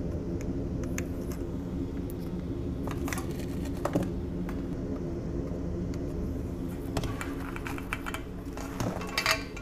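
Steady hum of an electric fan, with a few light metal clicks and taps of tweezers being handled and set down on a rubber work mat, several of them close together near the end.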